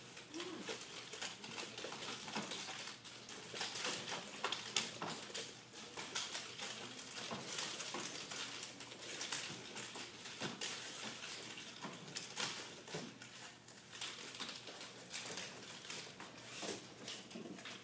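Nunchaku being swung and handled in a karate weapons form: irregular sharp clicks and light clacks of the sticks and chain, mixed with soft knocks from bare feet on the floor mats.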